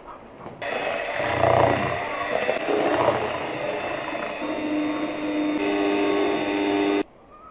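Electric mixer beating sponge cake batter, starting abruptly about half a second in and cutting off abruptly near the end, with a steady hum settling in during its second half.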